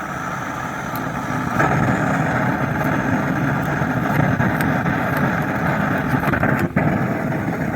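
Homemade used-oil burner stove running with its small blower, a steady roar of forced-draft flame that grows a little louder about one and a half seconds in as the flame is adjusted. Faint crackles of hot frying oil sound over it, and the roar dips briefly near the end.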